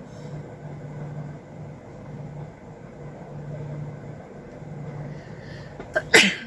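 A woman sneezes once, a sharp burst near the end that falls quickly in pitch and is cut short, after a few seconds of low, uneven background hum.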